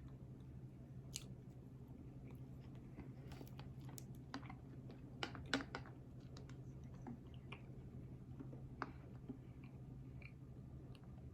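A person chewing food close to the microphone: faint, irregular wet clicks and smacks of the mouth, busiest about five to six seconds in, over a steady low hum.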